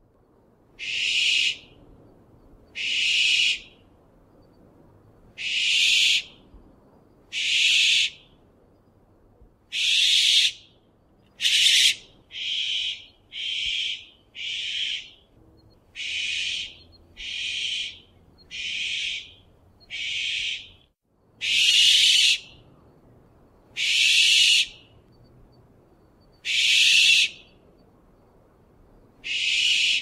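Australian masked owl calling: a series of harsh screeches, each under a second long, about one every two seconds. In the middle comes a quicker run of shorter, quieter screeches.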